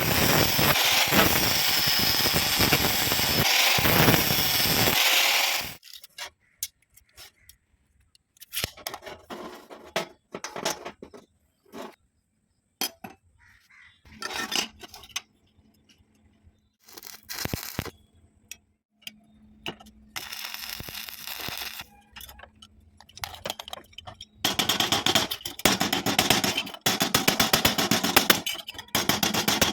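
Metal fabrication noise: a long stretch of loud, even rushing noise from metalwork, then scattered clinks, knocks and short scrapes of metal parts and tools. Another long loud stretch with a fine rapid crackle comes near the end.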